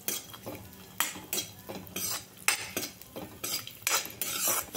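Metal ladle scraping and clinking against a metal kadhai, with irregular strokes a few tenths of a second apart, as raisins are stirred and roasted in ghee.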